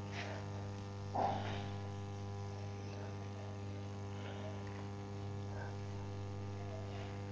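Steady electrical mains hum, with faint swishes of a board duster wiping a whiteboard and one brief louder sound about a second in.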